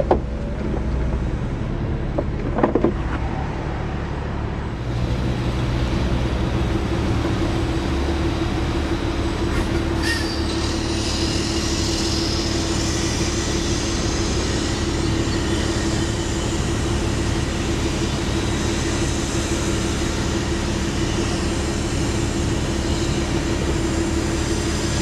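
BMW 335is Convertible's electro-hydraulic three-piece retractable hardtop folding down: a steady hum of the roof motor over a low rumble, with a sharp knock about ten seconds in as the panels move and stow.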